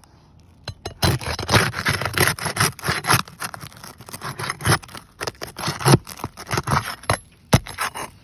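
Asphalt roof shingles being pried and lifted, with irregular scraping and crackling strokes that start about a second in. The old shingle tears as it comes up.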